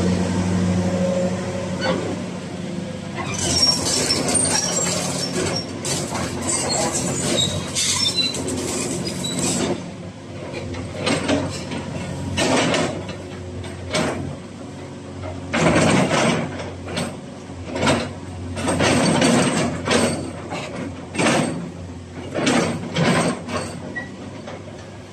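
Caterpillar 336D crawler excavator's diesel engine running steadily, fading after about ten seconds. High squeaks come in over the middle of that stretch, followed by a run of short, irregular noisy rushes.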